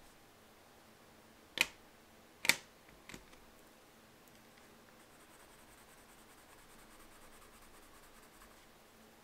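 Two sharp clicks, a second apart, with a smaller one after, as the wax pastels are swapped, then faint scratchy rubbing of a Caran d'Ache Neocolor II water-soluble wax pastel being scribbled onto sketchbook paper.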